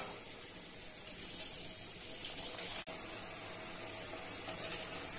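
Batter-coated baby potatoes deep-frying in hot oil in a steel kadai, a steady sizzling hiss.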